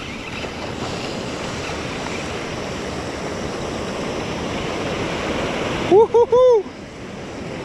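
Surf washing steadily up the beach. About six seconds in, three quick, loud calls, each rising then falling in pitch, break over it.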